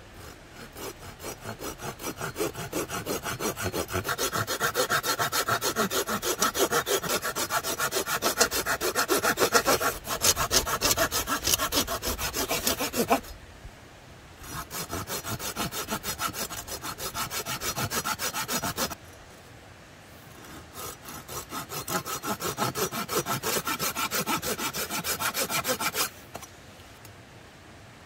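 A small folding saw cutting through a thin branch with quick back-and-forth strokes, in three runs: a long one of about thirteen seconds, then after a short pause a shorter one, and after another pause a last run that stops about two seconds before the end.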